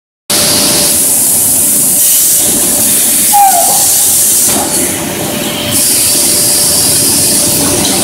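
Circle grinding machine running on metal discs: a loud, steady hiss over a faint steady whine. The sound dips briefly about halfway through, then comes back.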